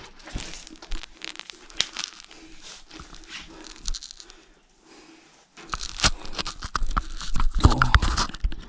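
Rustling, scraping and clicking handling noise on a handheld phone's microphone as its holder moves over rock. The noise turns louder, with rubbing and a low rumble, from about five and a half seconds in.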